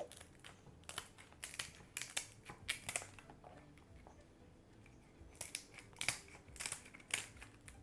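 Kitchen scissors snipping the small legs and shell off a raw Boston lobster tail: faint, crisp snips at an uneven pace, a run of them in the first few seconds, a short lull, then more near the end.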